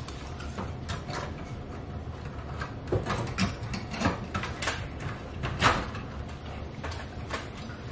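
Scattered clicks, taps and scrapes of hands handling wiring against the sheet-metal housing of a T8 fluorescent light fixture, the loudest about two-thirds of the way through.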